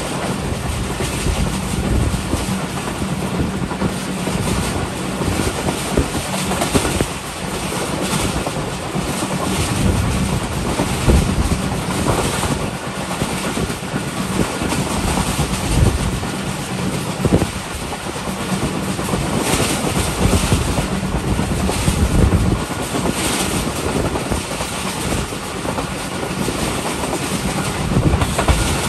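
Passenger train running at speed, heard from on board: a steady rumble and rush from the coaches, with the wheels clattering irregularly over rail joints.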